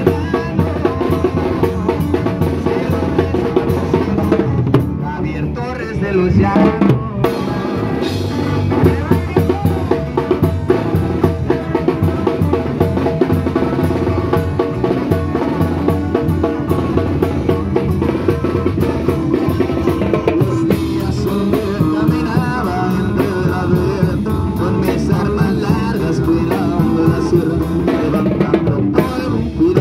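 Live band with sousaphone, drum kit and guitar playing upbeat dance music, with a steady drum beat and rimshots.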